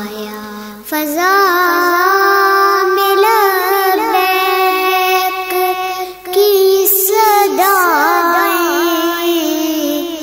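A young girl singing a devotional Urdu kalam in long, wavering held notes, with short breaks about a second in and around six seconds.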